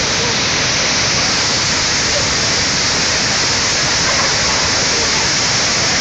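Waterfall pouring down into a pool: a loud, steady rush of falling water.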